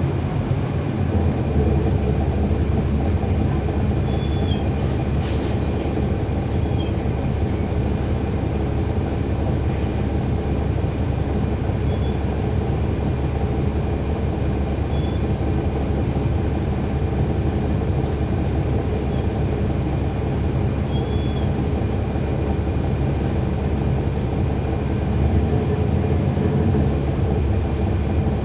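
Cabin sound of a 2012 NABI 416.15 transit bus running in traffic: the Cummins ISL9 diesel drones steadily under road and body rumble, and the ZF Ecolife automatic transmission is barely audible. A couple of sharp rattles and a few faint high chirps come through.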